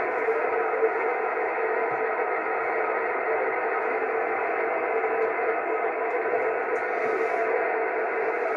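Steady static hiss from a CB radio receiver tuned to 27.555 MHz upper sideband, cut off above and below like a voice channel, with no station coming through.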